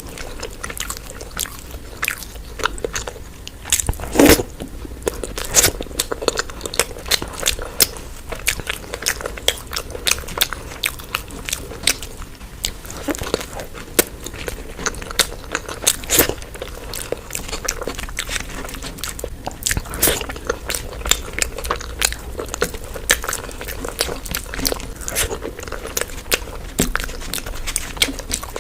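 Close-miked eating: a person biting and chewing crunchy street food, with many sharp crunches, the loudest about four seconds in.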